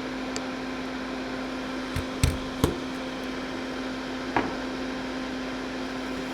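A fan humming steadily with one low tone. Several sharp knocks and taps are heard, as of tools on the workbench during stained glass soldering; the loudest two come a little after two seconds in, and another comes past four seconds.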